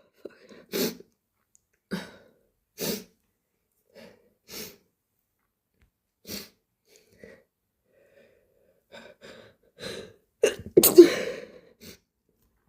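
A person's short, heavy breaths every second or two, coming quicker near the end, then one loud, wet sneeze about eleven seconds in.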